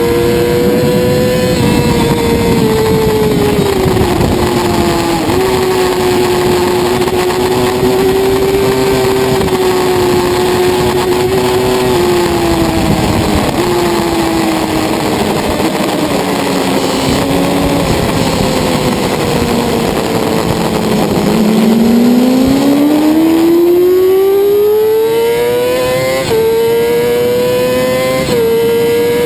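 Racing sport bike's engine heard from on board, with heavy wind rush. It runs high, downshifts a few times as it slows into a corner and bottoms out about two-thirds of the way in, then climbs steeply in pitch under hard acceleration, with gear changes near the end.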